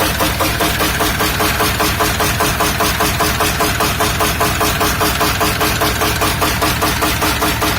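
UMZ-421 four-cylinder petrol engine of a UAZ running at a steady idle with a loud, regular knocking several times a second: a knock inside the engine, a sign that something has gone wrong.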